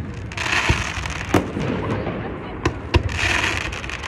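Fireworks going off: about five sharp bangs, with two spells of hissing crackle, one about half a second in and one about three seconds in.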